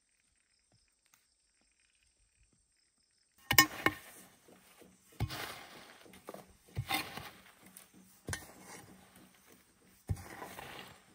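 A metal hoe chopping into a pile of dry wood shavings and scraping them toward a basket, starting about three and a half seconds in: five sharp strikes about a second and a half apart, each followed by a short rustle of shavings.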